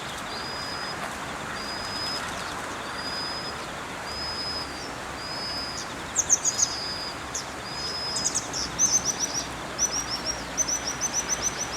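Small birds calling: a high, thin whistle repeated about once a second, then from about six seconds quicker runs of sharp descending notes, several a second, over a steady background hiss.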